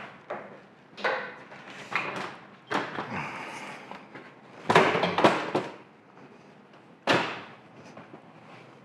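Irregular knocks and clunks of hard objects being picked up and set down, with a short scrape about three seconds in and the loudest clatter around five seconds in.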